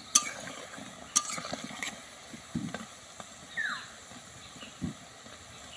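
Carrot gaja pieces deep-frying in oil in a karai on low heat: the oil sizzles and bubbles steadily around them. Two sharp clicks come in the first second or so.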